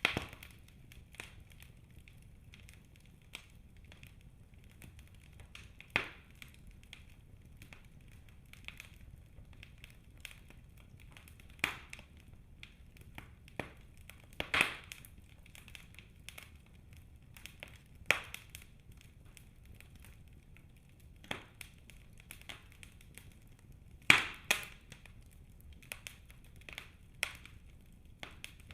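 Wood fire burning in a fireplace: irregular crackles and sharp pops from the burning logs, a few louder snaps standing out, over a faint low rumble of the flames.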